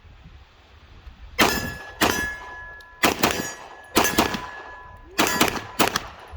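HK VP9 9mm pistol fired in an irregular string of about eight shots. Each shot is followed by a short metallic ring.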